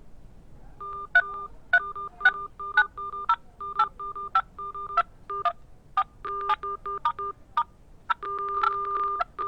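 Samsung A12 smartphone dial pad: a number is tapped in, about two key presses a second, each press giving a click and a short two-note keypad beep. Near the end one beep is held for about a second, as when the last digit is pressed before placing an outgoing call.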